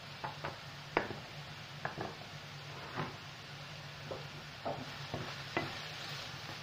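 Diced potatoes sizzling in hot oil in a non-stick frying pan while a wooden spoon stirs them, with irregular knocks and scrapes of the spoon against the pan, the loudest about a second in. A low steady hum runs underneath.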